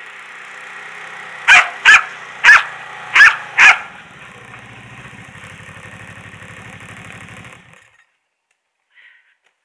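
A dog barks five times in quick succession over a snowmobile engine running as it approaches. The engine cuts off about eight seconds in.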